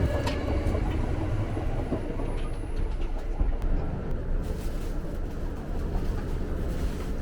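Kintetsu Aoniyoshi limited-express train running, heard from on board: a steady low rumble with occasional faint clicks from the wheels and track.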